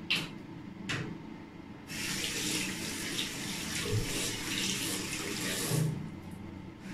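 Two short knocks, then a tap running into a bathroom sink for about four seconds before it is shut off.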